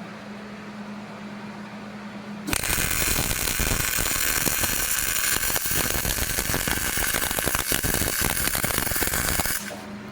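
Hobart 220-volt welder's arc crackling steadily for about seven seconds while laying a tack weld on 1/2-inch steel plate, starting about two and a half seconds in and cutting off sharply near the end. A low steady hum runs before the arc strikes.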